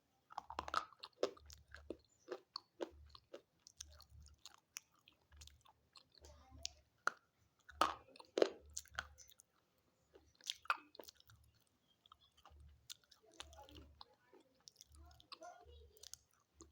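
Slate pencil being bitten and crunched between the teeth close to the microphone: sharp, irregular cracks in quick bursts, with the loudest snaps about eight and ten seconds in.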